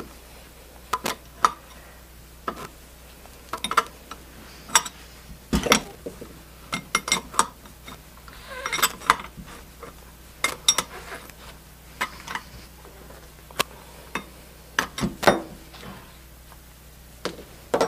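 Irregular metal clinks and knocks of a wrench working the brass valve retaining nuts on an aluminium refrigeration manifold as it is handled on a table.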